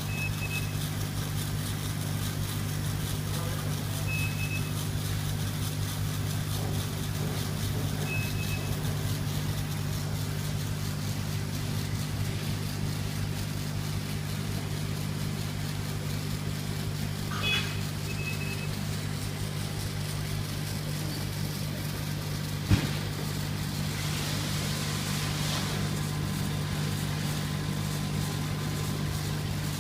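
Laser engraving machine running while it engraves a picture: a steady low hum, with a short high beep about every four seconds and one sharp click about three-quarters of the way through.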